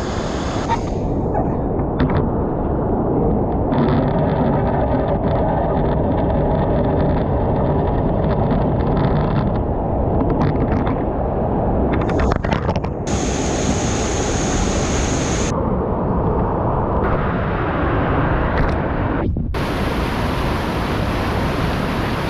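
Loud rushing white water and splashing around a kayak running a drop on an artificial rapids course, with the water noise close on the microphone. The sound turns dull and bright again several times.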